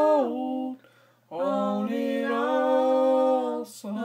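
A woman's voice singing a slow gospel melody unaccompanied, in long held notes: a phrase breaks off just under a second in, and after a short pause one long note is held, followed by a quick breath near the end.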